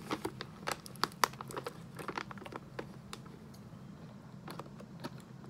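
Coffee bag crinkling and rustling as it is handled and its folded top worked open by hand, a quick run of sharp crackles that thins out after about two and a half seconds.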